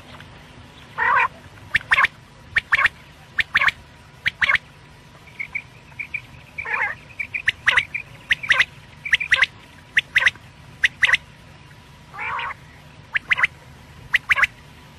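Recorded quail (batair) calls: many short, sharp notes, often in quick pairs or runs, with a longer, lower call three times, about a second in, near the middle and near the end. A faint steady hum lies under it.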